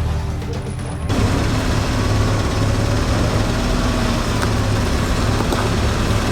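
Off-road rock-crawler's engine running at low speed under a steady noisy rush. The sound changes abruptly about a second in.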